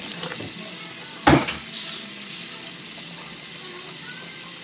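Steady hiss of water running from a bathroom tap, with one short loud sound a little over a second in.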